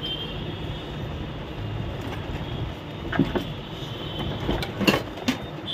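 Steady background noise with several short, sharp knocks and clicks in the second half, from things being handled and set down on a wooden workbench.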